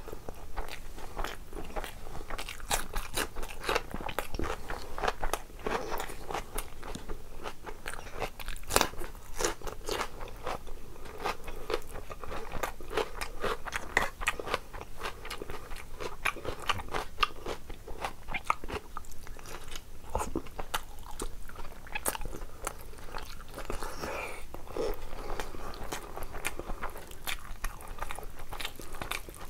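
Mouth sounds of someone eating rice and curry by hand: wet chewing and lip smacking, a dense run of small clicks and crunches that never pauses.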